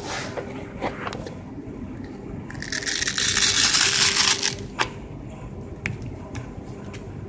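Homemade disc grinder with a roughly 1.5 kW motor and a 220 mm abrasive disc, running with a steady hum. Around the middle a workpiece is pressed against the disc for about two seconds, giving a loud grinding hiss. A few sharp clicks follow.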